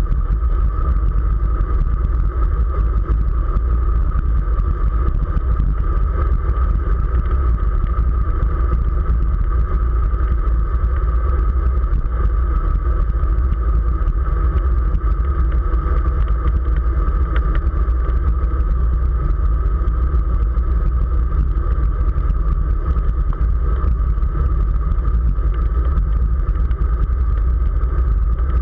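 Steady wind rumble on the microphone of a camera riding on a road bicycle at speed, with a steady hum running through it.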